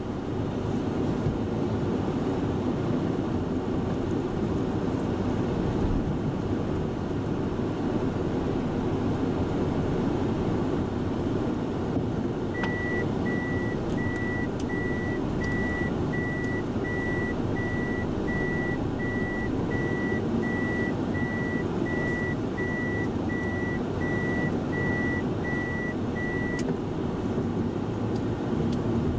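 Toyota Voxy minivan running with a steady low engine and road rumble. From about twelve seconds in to near the end, a high single-pitch warning beep repeats about one and a half times a second: the reverse-gear warning while the car backs up.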